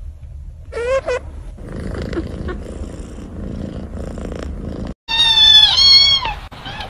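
A sleeping kitten purring, with one short squeak about a second in. About five seconds in, a long-haired ginger kitten meows loudly twice, in drawn-out calls.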